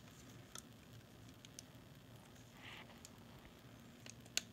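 Near silence with a few faint clicks and taps as small parts are handled and a side piece is fitted, the sharpest click just before the end.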